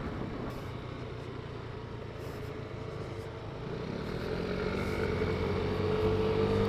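Yamaha Lexi S 125 scooter's liquid-cooled 125cc VVA engine running on the move, with road and wind noise. About two-thirds of the way in, the engine note grows louder and climbs slowly in pitch as the scooter picks up speed.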